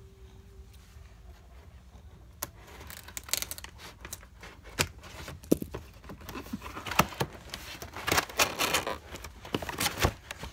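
A cardboard toy-kitchen box being handled and pried open, heard as a run of scrapes, taps and cardboard rubbing. It starts about two seconds in and gets busier past the middle.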